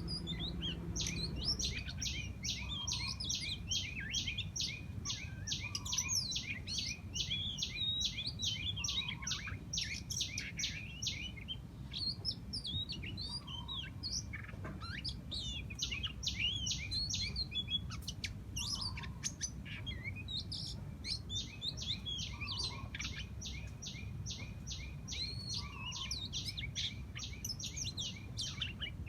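Several birds chirping and calling in a garden thicket. One bird gives a long run of rapid high notes, about four a second, which breaks off near the middle and starts again. Soft lower notes come every few seconds over a steady low rumble.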